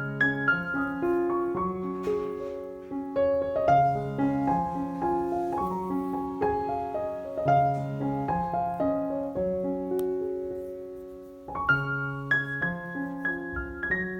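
Background music: a slow, gentle piano melody over sustained chords, fading briefly about eleven seconds in before a new phrase begins.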